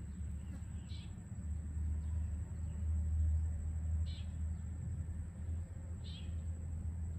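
A steady low hum, with a short high-pitched animal call repeated three times about two seconds apart.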